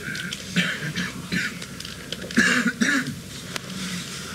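A person's short, breathy vocal sounds, like throat clearing or a cough, in several brief bursts; the loudest comes about two and a half seconds in.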